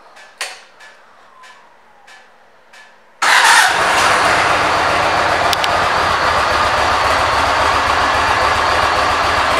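A few faint clicks, then about three seconds in the Yamaha Road Star Midnight's air-cooled V-twin starts with a brief burst and settles into a steady idle.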